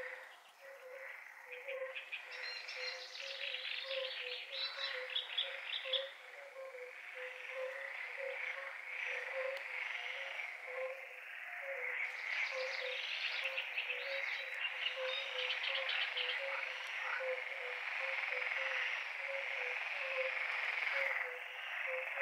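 Frog chorus building up: short low calls repeat about twice a second under a dense chorus of higher, rattling trills that comes in louder spells and grows louder overall.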